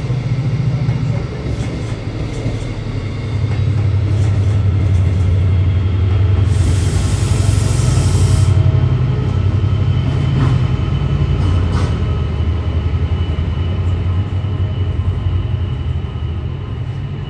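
Class 68 diesel-electric locomotive pulling away with its Caterpillar V16 diesel engine under power, a steady low drone that grows louder about three seconds in and eases off near the end. A short burst of hiss comes about seven seconds in.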